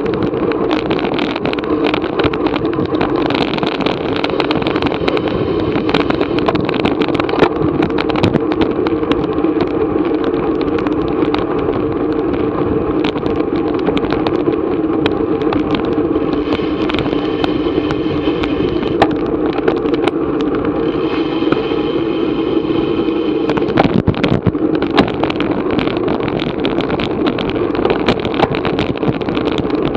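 Steady rush of wind and road noise on an action camera riding along on a racing bicycle at speed, with frequent small knocks and rattles from the bike.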